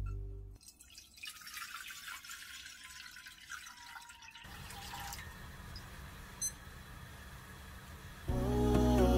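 Water poured from a glass Pyrex measuring cup into a pot, a soft splashing trickle. A short high blip about six and a half seconds in, and background music comes in near the end.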